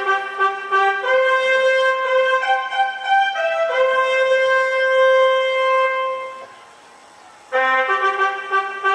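Background music: a slow melody of long held notes on a wind instrument, breaking off for about a second near the end and then starting again.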